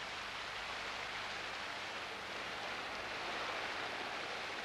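Shallow creek water flowing over a gravel bed: a steady rushing hiss.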